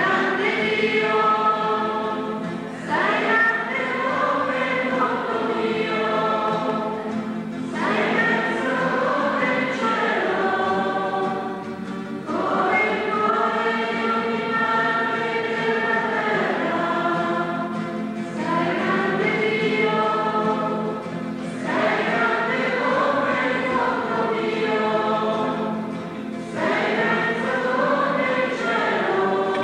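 A group of voices singing a slow church hymn together, in long held phrases with short pauses for breath between them.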